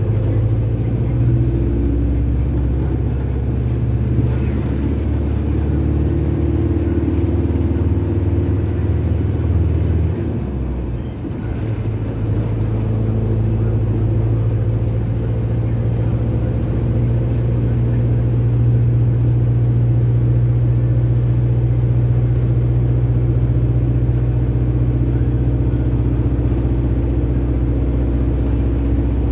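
Bus engine and road noise heard from inside the cab while driving, a steady low drone. About ten seconds in, the drone dips briefly and its deepest tone drops out, then it carries on at a new pitch.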